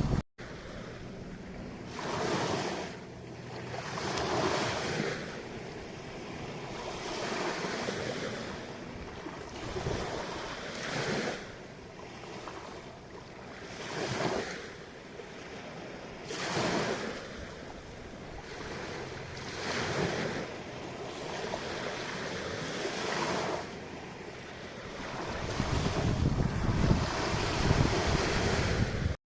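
Ocean waves washing in, swelling and easing every two or three seconds, with wind buffeting the microphone, heavier over the last few seconds.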